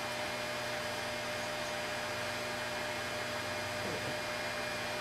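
Steady electrical mains hum over a constant hiss.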